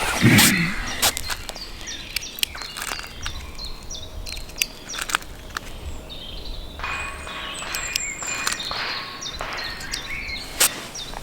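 Small birds chirping repeatedly, with scattered sharp clicks and a loud thump right at the start. A rustling noise comes in a little past the middle and lasts a couple of seconds.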